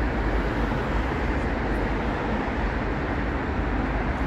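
Steady outdoor city background noise: a continuous low rumble with a hiss above it and no distinct event.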